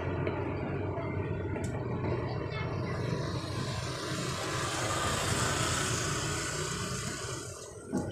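A motor vehicle's engine running and passing by on the street, its rushing noise swelling and then fading near the end, followed by one short knock.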